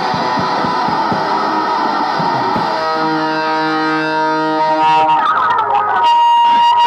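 Live band: electric guitar and drum kit playing hard, then about three seconds in the guitar holds a chord that rings out. Near the end it gives way to whining amp feedback that settles into one steady high tone.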